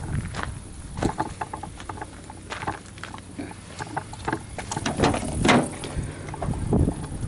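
Footsteps crunching on gravel with irregular clicks and handling noise, then the driver's door of a Citroën C2 being unlatched and opened about five seconds in.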